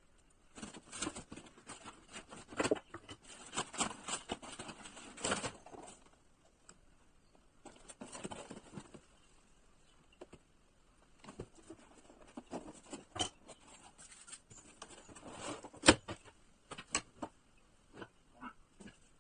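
Packaging being handled while a drill is unboxed: bursts of rustling and crackling with scattered clicks and knocks, the sharpest about sixteen seconds in.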